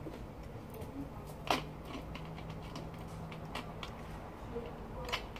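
Quiet room tone with a few faint clicks and small knocks; the sharpest comes about one and a half seconds in.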